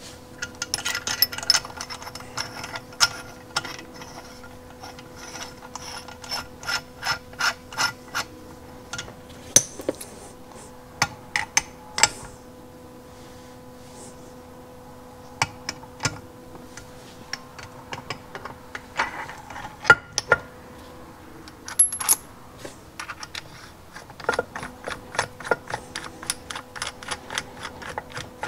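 Steel parts of a crankshaft installer tool (threaded rod, sleeve and nut) clicking and clinking as they are turned and threaded together by hand. The clicks come in runs of quick, even clicks near the start and again near the end, with scattered single clicks in between.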